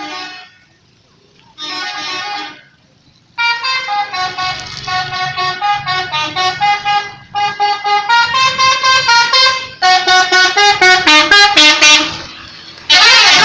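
Telolet musical multi-tone air horn on a Subur Jaya bus. It gives two short honks, then plays a long, quick, pulsing melody of changing tones, and a loud noisy blast follows near the end.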